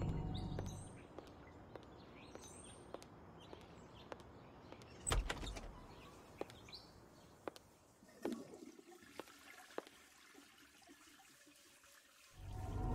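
Footsteps on pavement at a walking pace, with birds chirping in the background. About five seconds in, a door is pushed open with a thud, and a second thump follows near eight seconds. After that it goes to quieter indoor room tone, and music comes in near the end.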